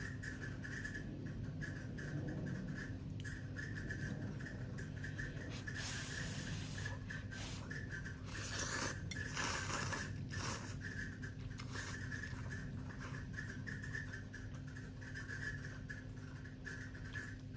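A person slurping and chewing instant noodles, with two louder slurps about six and nine seconds in. A steady low hum runs underneath.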